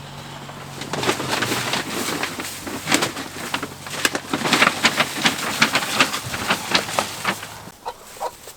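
Dry wood shavings rustling and crackling in quick, irregular clicks as quail and a chicken scratch through fresh bedding. A faint low hum runs underneath and stops near the end.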